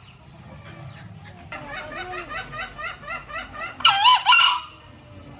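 Junglefowl calling: a quick run of short clucking notes for about two seconds, then one loud, short crow about four seconds in.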